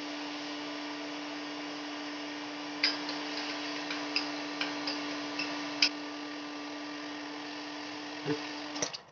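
Stanley electric heat gun running with a steady hum and hiss of hot air, heating the end of a blue PVC pipe fitting held over its nozzle to soften it. A few light clicks come between about three and six seconds in, and the gun is switched off just before the end.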